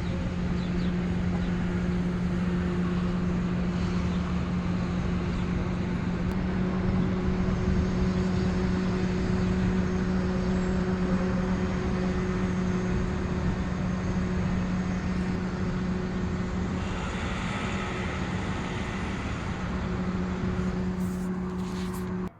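A machine with an electric motor running steadily: a constant hum over a rushing, airy noise that cuts off abruptly at the end.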